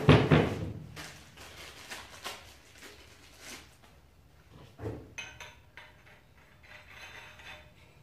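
Black steel pipe fittings clattering down on a wooden table, then scattered metal clinks and knocks as pieces are handled and threaded together by hand, with a second knock about five seconds in.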